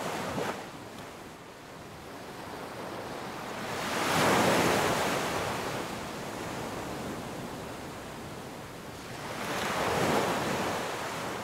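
Ocean surf breaking and washing up a sand beach, with two waves swelling loudest about four seconds in and about ten seconds in, and a steady hiss of water between.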